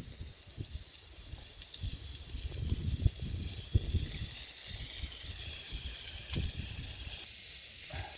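Meat sizzling on a hot pan over a camp stove, a steady hiss that grows louder about halfway through, with low knocks and bumps of the pan and food being handled.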